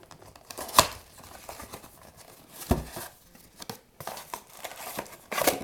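A cardboard blaster box and its wrapped card packs being torn open and crinkled by hand, with a few sharp rips and snaps; the loudest comes about a second in.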